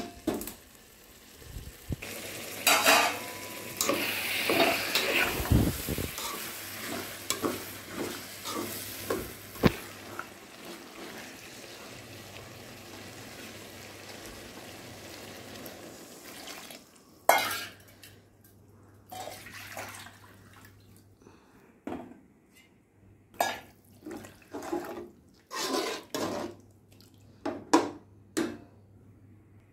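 Metal ladle stirring vegetable masala in an aluminium pot on a gas stove, with a long hiss and sizzle in the first half as water goes into the hot pot, settling to a steady quieter hiss. In the second half, repeated sharp scrapes and clinks of a metal spatula against the pot as the rice is stirred in.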